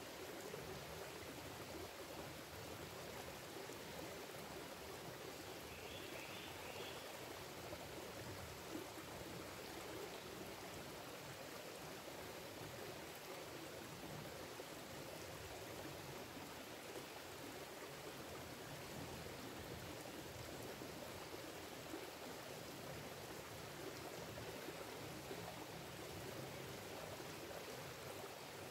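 Small shallow creek running over rocks: a steady, even trickle and babble of water.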